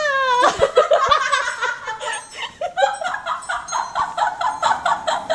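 A woman laughing hard in a long run of quick 'ha-ha' bursts, about three or four a second. Just at the start, the drawn-out end of a shouted birthday greeting trails off.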